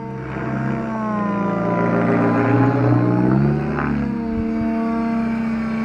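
Engine of a Whiplash V2 RC helicopter, a Hanson 300 with a Zimmerman muffler, running hard in flight. Its pitch rises and falls as the helicopter manoeuvres, with a marked shift about four seconds in.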